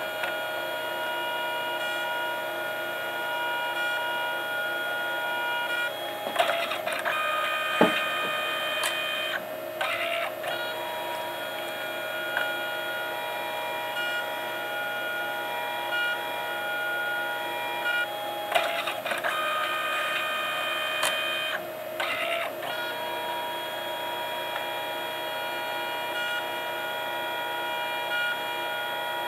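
Canon Selphy CP800 dye-sublimation photo printer printing: a steady motor whine of several pitched tones that changes pitch four times, with clicks as the mechanism shifts, and one sharp click about eight seconds in.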